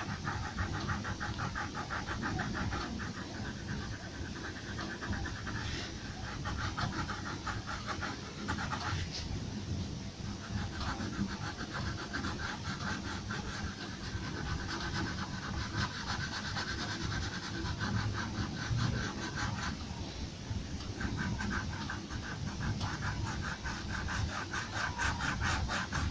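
Pencil scratching on paper in rapid back-and-forth shading strokes, with a few short breaks between bouts.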